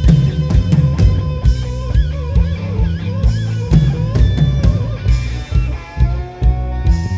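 Blues-rock band playing live: an electric guitar lead with wavering, bent notes over a steady drum beat and bass.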